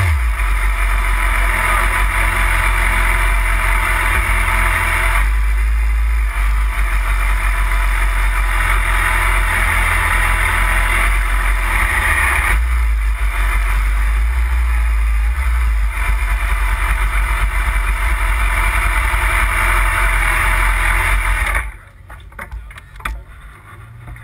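BMW S1000RR inline-four engine idling steadily, heard up close from a camera mounted on the bike; the sound cuts off abruptly about 22 seconds in.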